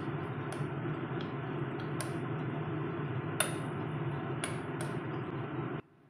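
A spoon clinks sharply against a glass bowl several times while stirring dark chocolate and cream over a pot on the stove, above a steady hiss from the stove. The hiss cuts off suddenly near the end.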